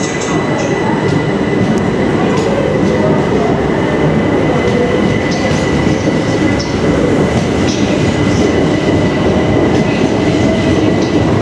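Class 375 Electrostar electric multiple unit pulling out of the platform: a steady rumble of wheels on rail, with a thin high whine held until near the end and a lower motor tone sliding in pitch as it moves off.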